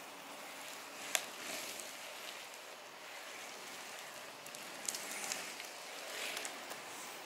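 Freeskate wheels rolling on asphalt: a faint, steady hiss with a sharp click about a second in and a few lighter clicks around five seconds in.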